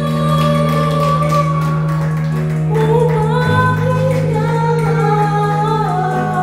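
Female voices, women and a girl, singing a song together through microphones over amplified music, with held bass notes that change about halfway through.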